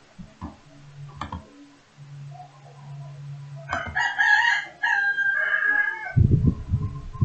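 A rooster crowing, one call in two parts over about two seconds in the middle, followed near the end by a cluster of low thumps.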